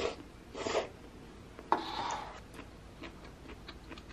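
Light tabletop handling sounds: two soft rustles, a sharp knock a little under two seconds in with a brief scrape after it, then scattered faint light ticks, as a paper noodle cup and tableware are handled.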